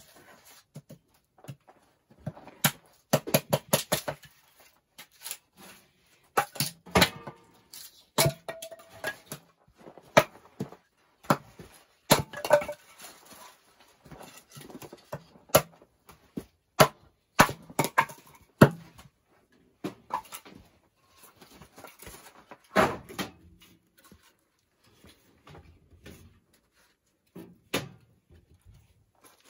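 Hatchet splitting kindling on a wooden chopping block, with split sticks of dry wood clacking together as they are gathered and dropped into a wood stove. The knocks are sharp and irregular, some coming in quick runs.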